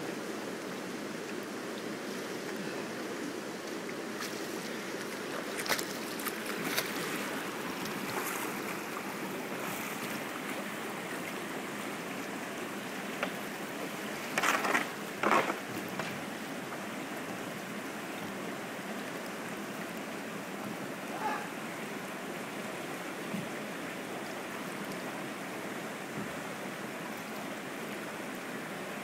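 Steady rushing of river rapids, with a few short sharp splashes or knocks. The loudest cluster comes about halfway through.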